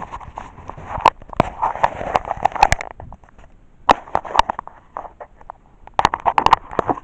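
Rustling and sharp knocks close on the microphone, in three bursts: a long one at the start, a short one about four seconds in and another near the end. This is handling noise from a recorder whose lens is covered.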